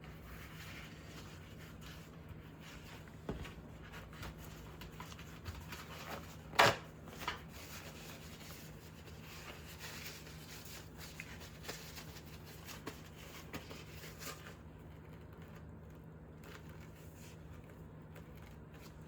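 Quiet kitchen handling noises, rubbing and rustling, over a steady low hum, with one sharp knock about six and a half seconds in and a couple of softer taps around it.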